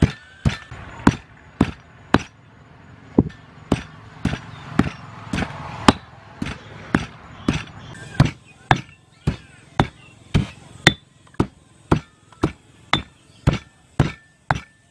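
Stone pestle pounding herbs in a heavy stone mortar, grinding them into a green paste: a steady run of knocks, about two a second, with a short pause about two seconds in.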